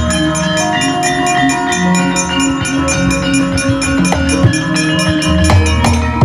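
Javanese gamelan music for wayang kulit: ringing metallophone notes held over a steady pattern of hand-drum strokes.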